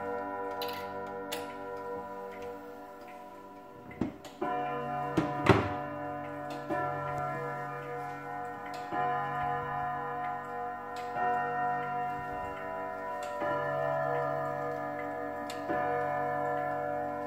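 Lorenz Furtwängler (LFS) quarter-hour wall clock striking seven o'clock on a low gong rod: one slow stroke about every two seconds, each ringing on over the fading chime rods, with the pendulum ticking underneath. About four seconds in come two sharp knocks, the second the loudest sound.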